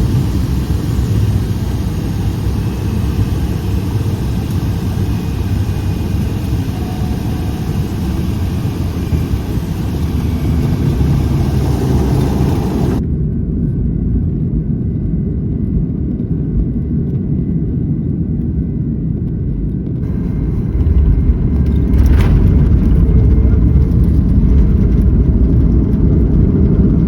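Single-engine Cessna 208B Grand Caravan EX turboprop running with a loud, steady hissing roar. About halfway through it cuts to a Boeing 737-9's CFM LEAP-1B turbofans as a deep, low rumble, which grows louder a few seconds later as the engines spool up.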